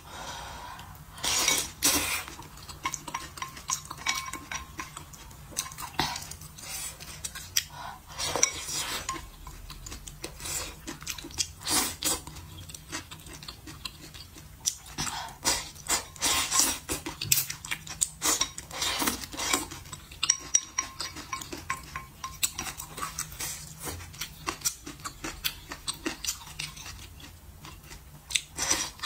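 Wooden chopsticks clicking and scraping against a ceramic bowl while picking through noodle broth, with several short noisy slurps of noodles between the clicks.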